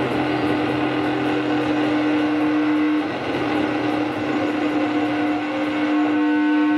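Experimental drone and noise music from an electric guitar through effects and electronics: a dense, loud noisy wash over a steady held tone, with a cluster of higher held tones coming in about six seconds in.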